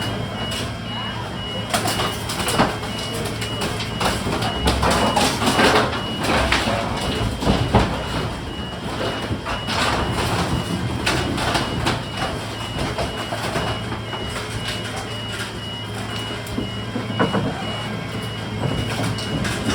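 Garbage truck running with its reversing alarm beeping at an even rate, over a steady engine hum and irregular bangs and rattles.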